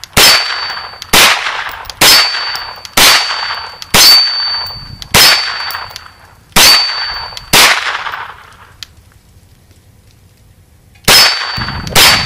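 9mm Kel-Tec Sub2000 Gen 2 carbine fired semi-automatically. The first string is eight shots at roughly one per second; after a pause of about three and a half seconds, two more shots come near the end. Most shots are followed by a short high metallic ring.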